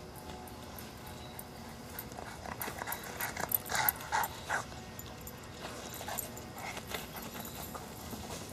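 A Boston terrier's paws running through grass and dry fallen leaves: a quick run of footfalls and leaf rustles that comes close, is loudest around four seconds in, then fades as the dog moves off.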